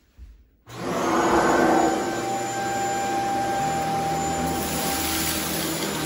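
Shark HZ600C Ultralight Pet Pro corded stick vacuum running on a rug, its motor and brushroll making a steady rushing noise with a high, steady whine. The sound starts suddenly under a second in, after a brief knock.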